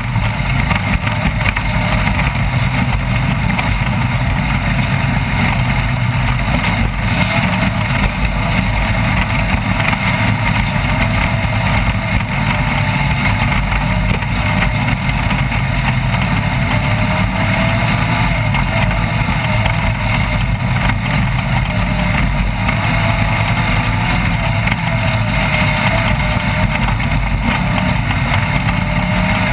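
Off-road race vehicle's engine running continuously under way, a loud, steady drone with a faint wavering whine above it.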